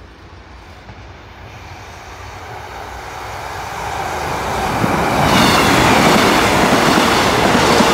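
East Midlands Railway Class 156 and Class 153 diesel multiple units approaching and passing over a level crossing at speed. The train's rumble and wheel noise grow steadily for about five seconds, then stay loud as the carriages go by.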